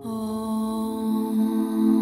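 Meditative new-age music: a low, steady drone with a stack of held overtones comes in suddenly and sustains.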